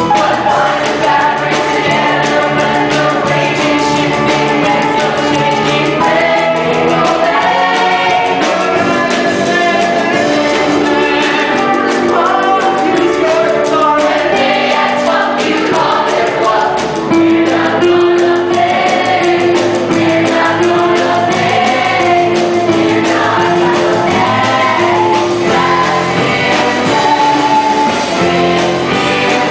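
A stage musical cast singing together in chorus over a rock band accompaniment.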